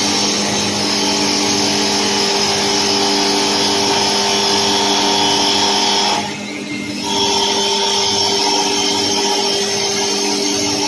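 Small CNC wood lathe running, its spindle motor giving a steady whine while the cutter turns a wooden workpiece. The sound dips briefly about six seconds in, then carries on.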